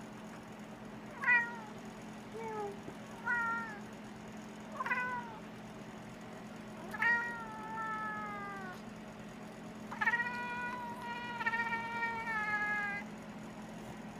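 Maine Coon cat chattering: four short chirping calls, then two longer meows that fall in pitch, the last about three seconds long.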